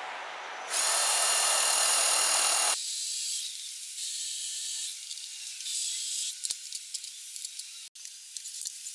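A handheld power tool running for about two seconds with a high whine, the loudest sound here. A steady high hiss follows and thins out near the end into scattered clicks.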